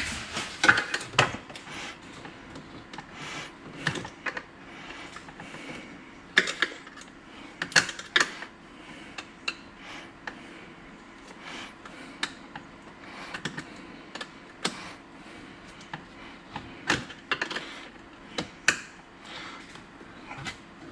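A screwdriver tightening hose clamps on oil catch-can hoses makes irregular small metallic clicks and taps, with a faint steady hum beneath.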